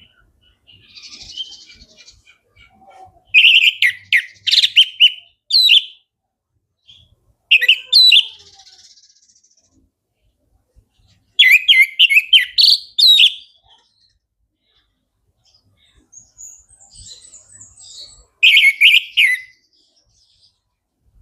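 Orange-headed thrush singing: four loud bursts of rapid, varied whistled notes separated by pauses of a few seconds, with softer chirps in between.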